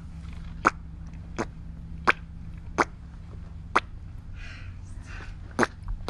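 Sharp, wet mouth pops imitating Squidward's squelching footsteps from SpongeBob SquarePants. They come one about every 0.7 s in a walking rhythm, with a longer pause in the second half. A steady low hum runs underneath.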